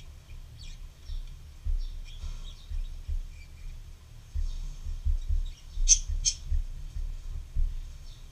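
Black felt-tip marker (Sharpie) squeaking and scratching in short strokes on paper as dark areas are filled in, with two sharper squeaks about six seconds in. Dull low knocks of the hand and pen against the paper come in between.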